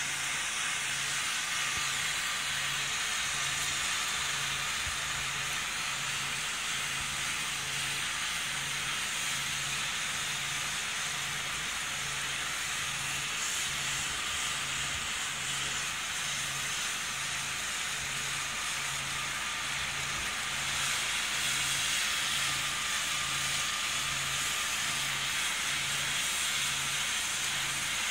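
Steady hiss of heavy rain falling on paving and surfaces, with a faint low hum pulsing about once a second underneath.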